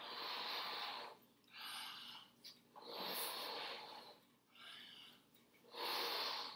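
A person blowing up a rubber balloon by mouth, over and over to stretch it: about five rushing puffs of breath and air, each under about a second long.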